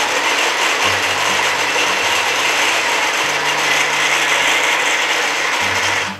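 Tefal electric mini chopper running steadily, its blades whirring through red chillies, garlic and shallots with a little oil and water to make a sambal paste. The motor cuts off suddenly near the end.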